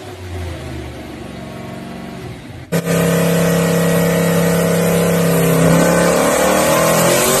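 Turbocharged Hemi V8 of a 2800 hp Toyota Supra drag car idling steadily. After a cut nearly three seconds in it is much louder, and near the end the revs climb.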